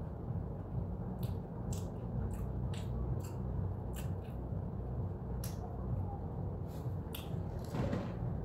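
Steady low room hum with faint, sharp clicks scattered through it, and a short rustle near the end as a plastic iced-drink cup is picked up.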